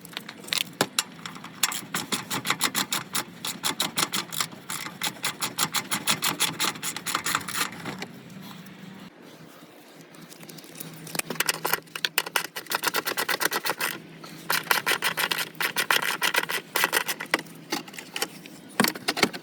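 Hand ratchet clicking as a 10mm bolt is backed out, in runs of quick, even clicks with a short pause near the middle.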